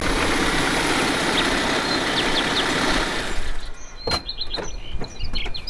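Land Rover Defender 110's 2.2-litre Puma four-cylinder turbodiesel running as the truck rolls up, then stopping about three and a half seconds in. A few sharp clicks and short high chirps follow.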